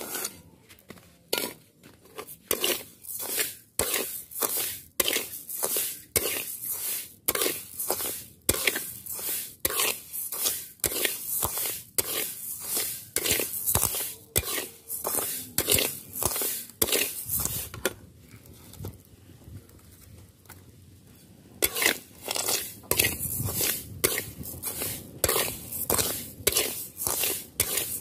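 Spatula scraping and stirring dry rice grains in a hot pan, in regular strokes about twice a second, as the rice is dry-roasted until nearly golden. The stirring stops for about four seconds two-thirds of the way through, then resumes.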